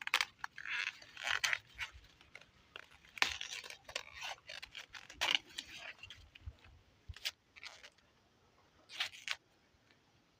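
Rustling and crackling of sweet corn leaves and husks, with sharp snaps, as an ear of sweet corn is handled and picked off the stalk; busiest in the first six seconds, with one more short rustle later on.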